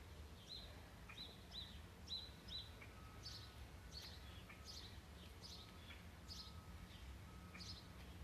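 Faint bird chirping: a run of short, quick chirps, then a string of fast falling notes about twice a second, over a low steady hum.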